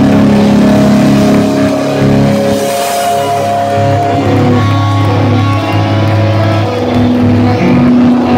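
Live heavy metal band playing loud: distorted electric guitars holding long sustained notes.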